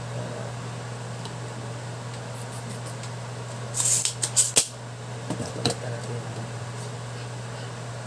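Tool handling on a workbench: a brief rattling clatter about four seconds in and a few lighter clicks just after, as a soldering iron is taken up. A steady low hum runs underneath.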